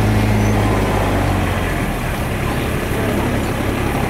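Port Huron steam traction engine running on the belt, with a steady low hum that stops about two seconds in, leaving a rough, even mechanical noise.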